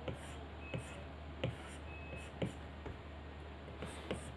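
Stylus tip tapping and scratching on an iPad Pro's glass screen while drawing: a few sharp taps roughly a second apart with soft scraping between them, and a quicker cluster of taps near the end, over a low steady hum.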